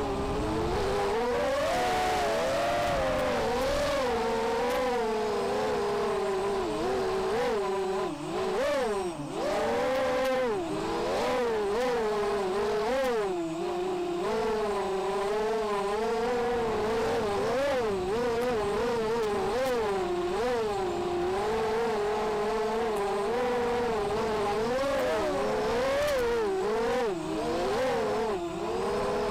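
The ZMR250 quadcopter's T-motor 1806 2300KV brushless motors and propellers whine steadily, their pitch rising and falling constantly with the throttle. The sound drops briefly about eight seconds in and again near the end.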